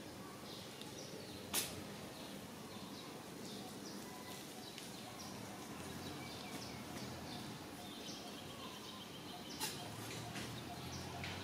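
Outdoor ambience with many short, high-pitched animal chirps scattered throughout, over a steady background hiss. Two sharp clicks stand out, one about a second and a half in and one near the end.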